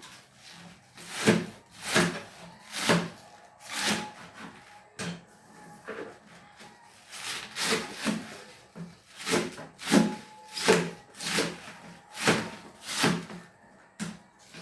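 Knife slicing through a head of cabbage onto a chopping board, with repeated cutting strokes at an uneven pace of about one a second.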